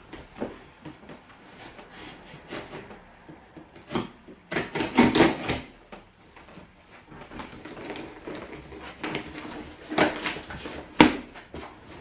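A large cardboard box being opened and handled by hand: scraping and rustling of cardboard with sharp knocks, loudest in two spells about four seconds in and again near the end.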